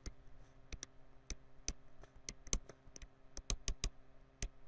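A stylus clicking against a tablet surface while words are handwritten: a dozen or more sharp clicks at an irregular pace.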